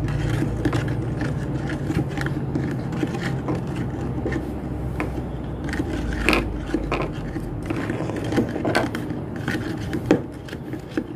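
Plastic toy spoon stirring a watery slime mixture in a small plastic pot, scraping and rubbing steadily against the pot's sides and bottom with scattered sharper knocks.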